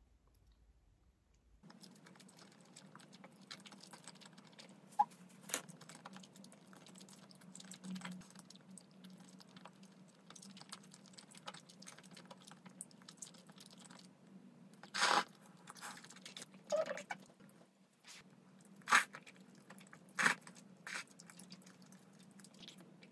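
Close-miked eating sounds: chewing and biting on melted cheese and tteokbokki, with small clicks throughout over a low steady hum. A handful of louder short smacks stand out, most of them in the second half.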